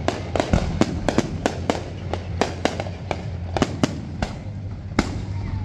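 Aerial fireworks going off: a rapid string of sharp bangs and crackles, about four a second, thinning out after about four seconds, with one more loud bang near the end.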